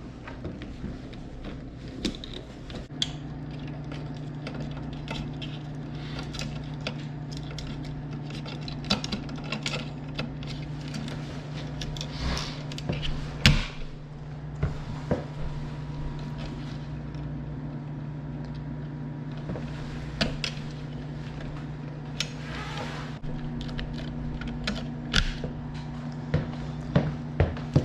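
A steady low electrical hum comes on about three seconds in and holds, under irregular clicks, taps and knocks of hands working with tools and wiring. One sharp knock stands out about halfway through.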